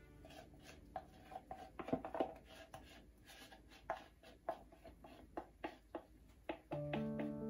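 Wooden chopsticks tapping and scraping against a plastic mixing bowl as whipped egg is scraped out into a pan, in irregular light taps. Background music comes back in near the end.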